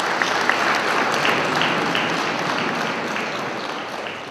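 Audience applauding, loudest at first and gradually dying away.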